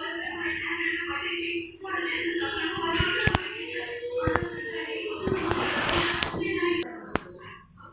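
Kent RO water purifier's filter-change alarm: a high-pitched electronic buzzer tone sounding steadily, the sign that the filter cartridge is due for change. A few sharp clicks sound over it.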